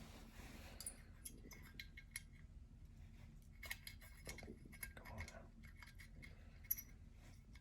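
Faint, scattered light clicks and ticks of small metal carburetor parts and hand tools being handled while the float tab is bent to set the float drop.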